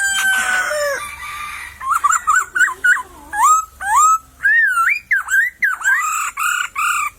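Poksay (a laughingthrush) singing: loud, varied whistled phrases of rising and falling slurred notes, with a quick choppy run of notes about two seconds in, then a series of swooping whistles that stops near the end.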